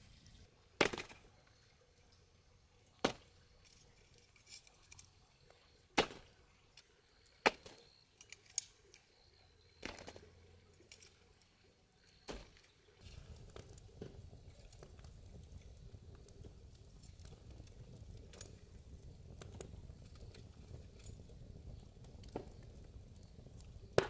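A series of single sharp knocks, about seven in twelve seconds at uneven gaps, then a steady low rumble.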